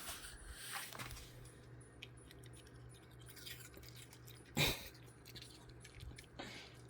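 Dogs eating apple pieces: faint crunching, scratching and clicking, with one louder short noise about four and a half seconds in.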